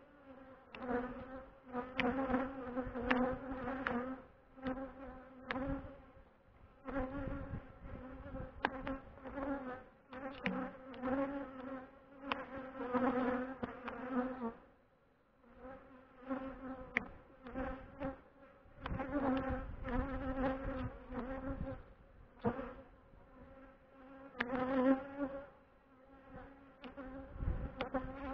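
Honeybees buzzing around an opened hive, single bees passing close with a hum that swells and fades, dropping off briefly about halfway through. A few sharp clicks come through the buzz.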